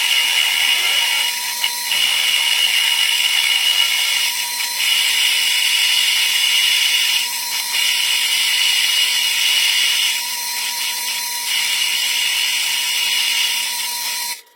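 Electric arc welding: a steady crackling sizzle with a thin high tone under it, dipping briefly every few seconds and cutting off suddenly near the end as the arc is broken.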